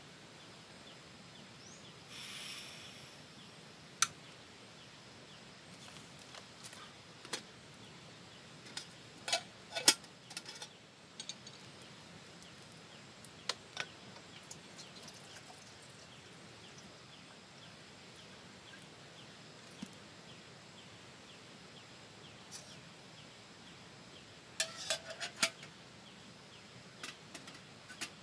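Scattered sharp clicks and knocks of a small camping kettle, plastic water bottle and portable gas stove being handled, with a short hiss about two seconds in and clusters of clicks around ten and twenty-five seconds. Faint outdoor background noise underneath.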